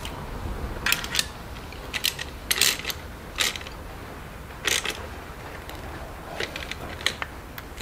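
Socket ratchet clicking in short rasping bursts, a stroke at a time, as a bolt is run down to hold an ignition coil's bracket.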